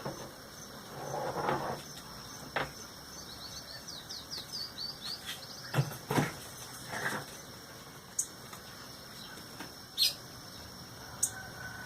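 A small bird giving a quick run of short, high chirps about four seconds in, amid scattered sharp clicks and knocks, over a faint steady high tone.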